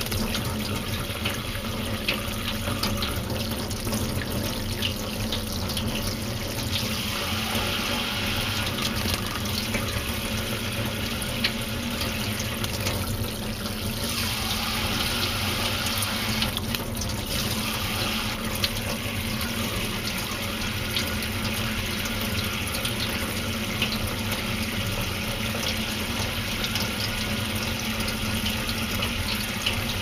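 Kitchen tap running steadily, water pouring onto cupped hands and into a stainless steel sink. The splashing brightens now and then as a white Java sparrow bathing under the stream flutters its wings.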